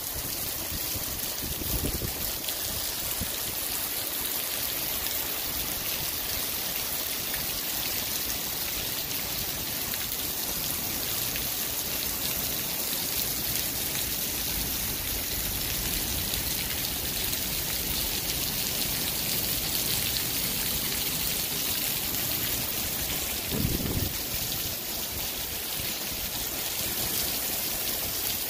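Heavy rain hissing steadily on pavement, with runoff water splashing down into a street storm drain grate. Two brief low bumps, about two seconds in and again near the end.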